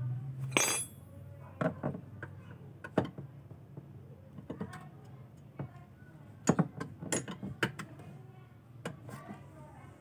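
Metal clinks and clicks of a T-handle wrench working on the washing machine's gearbox mounting bolts, loosening them. The clinks come irregularly, with the loudest ones about half a second in, around three seconds, and in a cluster around six and a half to eight seconds.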